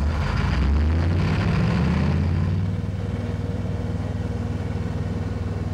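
Low, steady engine drone, louder for the first two and a half seconds and then holding level.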